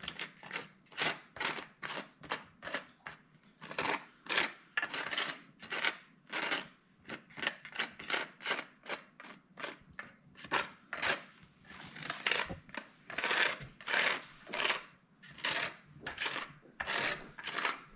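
A card being scraped back and forth over a plastic capsule-filler tray, pushing powder into the capsules: a steady run of short scraping strokes, about two a second.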